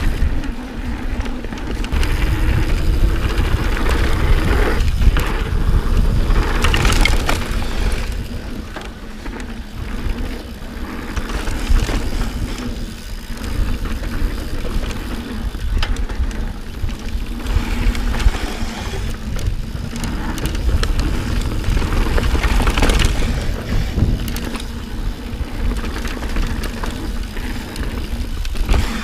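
Santa Cruz Hightower mountain bike riding fast down a dirt singletrack: tyres rolling over dirt and roots, the bike rattling over bumps, and wind rumbling on the camera's microphone. There are two louder hissing swells, about a quarter of the way in and again near the end.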